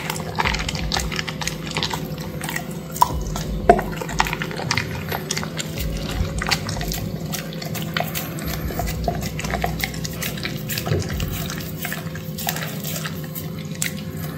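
A golden retriever chewing raw broccoli: a dense, irregular run of crisp crunches and mouth clicks over a steady low hum.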